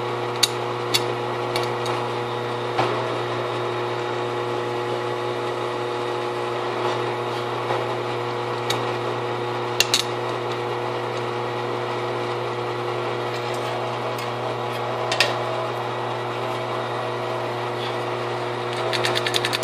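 Drill press running with a steady hum while a countersink bit cuts the screw holes in thin metal, with a few sharp clicks scattered through it.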